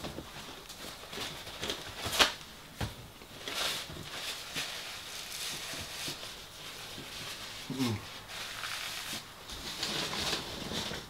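A man handling a paper tissue at a table, wiping his face with it: scattered clicks and paper rustles, a short low sound falling in pitch about eight seconds in, and breathy rustling near the end.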